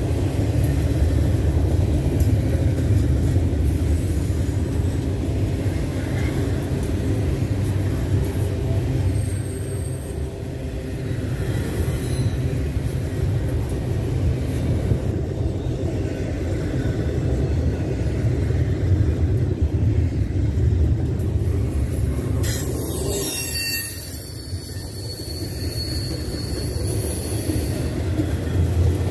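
Norfolk Southern double-stack intermodal freight cars rolling past close by: a steady rumble of wheels on the rails. A brief high squeal comes about ten seconds in, and another near the end.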